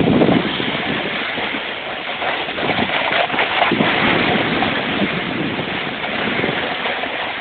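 Snowboard sliding and scraping over snow while riding downhill, mixed with wind rushing over the phone's microphone; a louder scrape comes right at the start.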